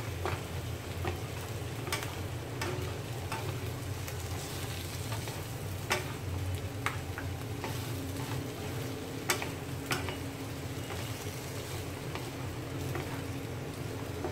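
Tofu cubes, green chilies and onion sizzling in a nonstick frying pan while being tossed with two wooden spatulas, with scattered sharp clicks of wood knocking the pan.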